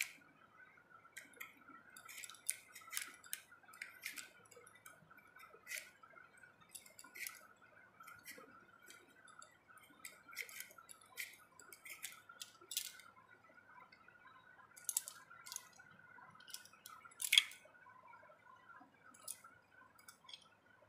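Hand peeler scraping the skin off a raw potato in short, irregular strokes, quiet, with one sharper stroke near the end.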